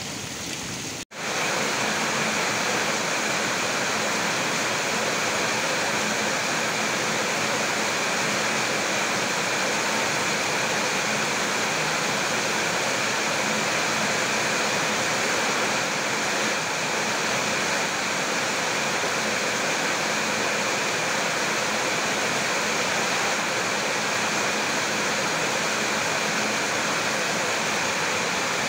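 Heavy tropical rain falling steadily, an even hiss. After a short break about a second in, it comes louder, heard from under a corrugated metal roof with water pouring off the roof edge.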